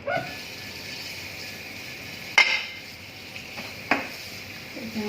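Dishes and cutlery being set into a dishwasher rack: three sharp clinks, the loudest about two and a half seconds in, over a steady hiss.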